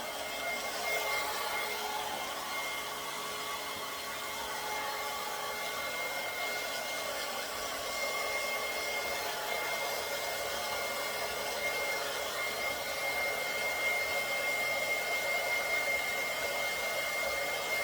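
Blow dryer running steadily with a constant high whine, drying a freshly bathed dog's wet fur.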